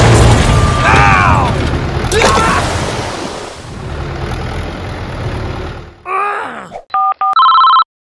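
Dubbed sound-effect track: loud rumbling noise with a steady low hum for about six seconds, with a falling squeaky glide about a second in. Then a short chirpy cartoon-like voice and a few electronic telephone-style beeps near the end.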